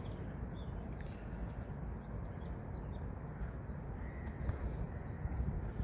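Outdoor ambience: faint, scattered bird calls over a steady low rumble.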